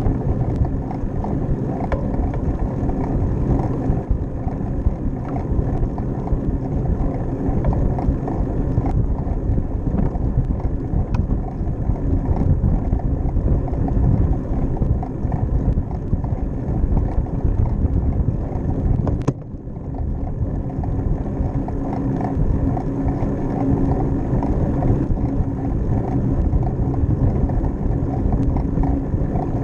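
Steady rumble of a bicycle riding on a paved path, with wind buffeting the camera's microphone. The noise dips briefly about two-thirds of the way through.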